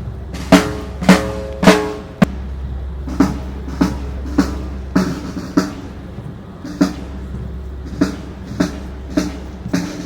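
Marching drums beaten at a steady walking tempo, just under two strikes a second, each hit ringing briefly, over a low steady hum.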